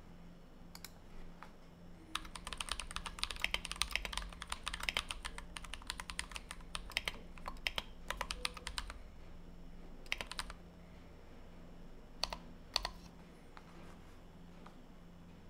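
Fast typing on a Tofu 60 mechanical keyboard with a brass plate, Everglide Dark Jade switches lubed with Krytox 205g0 and filmed, and PBT OEM-profile keycaps: a rapid run of keystrokes starting about two seconds in and lasting about seven seconds, then a few separate clicks.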